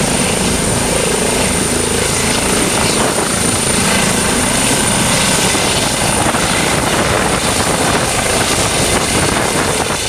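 Eurocopter EC135 trauma helicopter lifting off from a grass field: loud, steady rotor and turbine noise with a thin high whine, cutting off abruptly at the very end.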